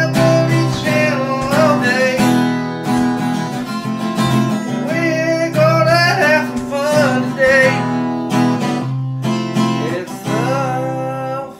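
Strummed acoustic guitar with a voice singing a melody over it: a homemade intro song.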